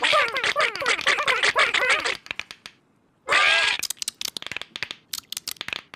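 Squeaky, chirping cartoon-character voices chattering over each other, then a pause of about a second and another short burst. A rapid run of sharp clicks and patters follows.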